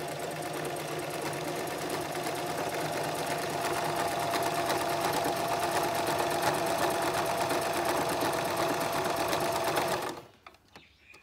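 Empisal Creations domestic electric sewing machine running steadily as it sews a triple stretch stitch, a motor hum with a fast even needle rhythm. It stops near the end.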